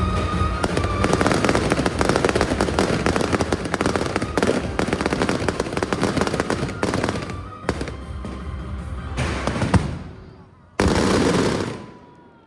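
Aerial fireworks going off in a rapid, dense barrage of bangs and crackles that thins out and fades about ten seconds in. A sudden loud burst of noise, about a second long, follows near the end.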